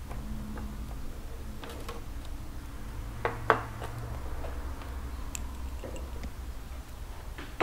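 Objects being handled on a workbench: a few light ticks and two sharp clicks about three and a half seconds in, over a steady low hum.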